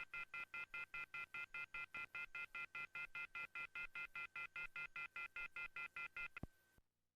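Telephone off-hook warning tone: a shrill multi-tone beep pulsing about five times a second, the signal for a receiver left off the hook. It cuts off about six and a half seconds in with a click and a brief single tone.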